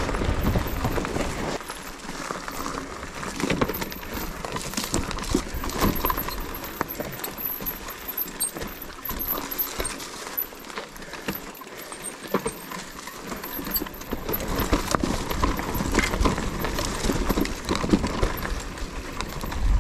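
Mountain bike rattling and clattering down a rocky trail: tyres knocking over stones and the chain and frame jangling in quick, irregular knocks, with a low rumble of rolling noise that is stronger near the start and in the last few seconds.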